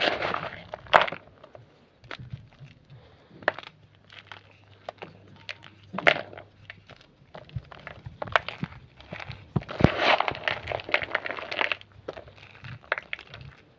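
Homemade grey gym chalk crunching and crumbling, in scattered sharp cracks with a denser run of crackling near the end.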